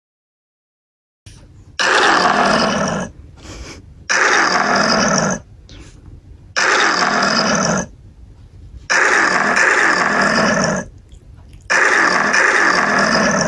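Recorded wild-beast roar sound effect played from a speaker and picked up by the room microphone: five loud roars about a second and a half each, the first a little under two seconds in and the last near the end.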